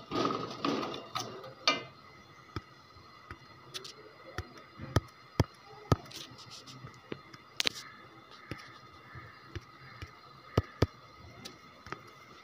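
Slotted spatula stirring a tomato and spice masala frying in ghee in an aluminium pot, with irregular sharp taps and clicks of the spatula against the pot. The stirring is busier in the first couple of seconds, then settles into scattered single taps.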